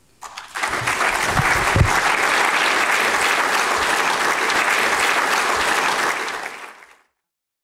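Audience applauding, building up within the first second, holding steady, then fading away near the end.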